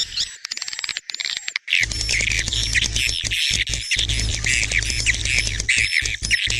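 Swiftlet calls from a swiftlet-farm lure-sound recording: rapid high chirping twitters repeated in a quick rhythm, with clicking trills in the first second and a half. From about two seconds in, a steady low hum runs beneath the chirps.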